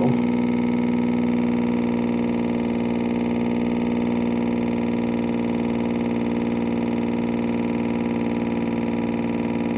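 Bedini pulse motor running steadily, a constant buzzing hum with one strong pitch and many overtones that stays level throughout. It is running well but below its full speed.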